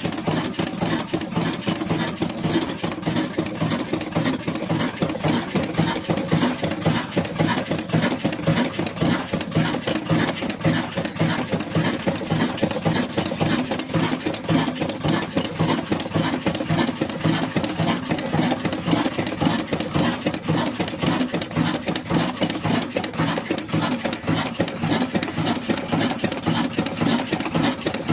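22 HP stationary diesel engine running steadily under load with an even, rapid beat, driving a wheat grinding mill.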